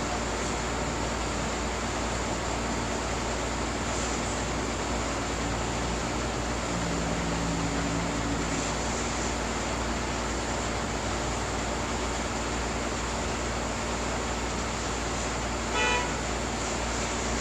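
Steady background noise, with one short pitched toot about a second and a half before the end.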